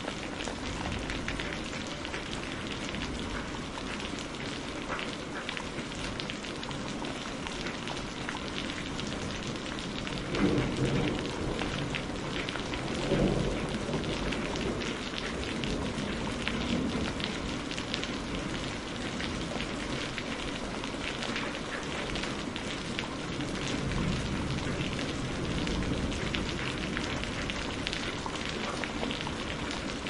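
Steady rain falling, a dense patter of drops. About a third of the way in come two short, louder rumbles of thunder a few seconds apart, and a softer, longer rumble later on.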